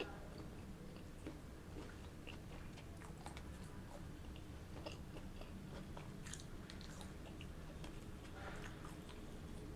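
Close-miked chewing of pizza and garlic bread crust: soft, wet mouth sounds with scattered small crunches and clicks. A faint steady low hum lies underneath.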